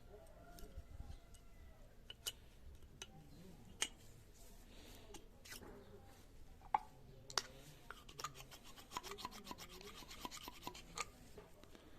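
Hand work on small metal parts: scattered sharp clicks and knocks, then a quick, even run of about nine clicks a second lasting some three seconds.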